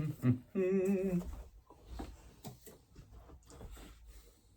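A person's voice briefly, then a short wavering hum of about half a second near the start, followed by faint scattered clicks and rustles of handling.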